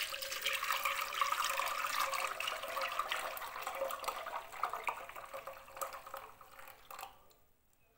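Thick blended lemon pulp and juice poured in a heavy stream into a plastic mesh strainer over a plastic basin, splashing and gurgling as it fills the sieve. The pour tapers off and stops about seven seconds in.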